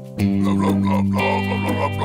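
Background cartoon music: a louder sustained chord comes in just after the start, with a quick repeating figure played over it.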